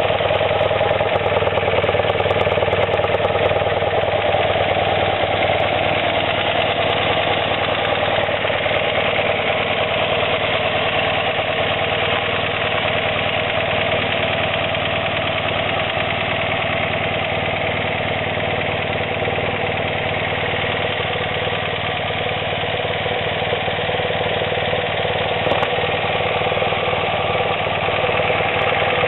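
A 1976 BMW R90S's air-cooled flat-twin boxer engine idling steadily.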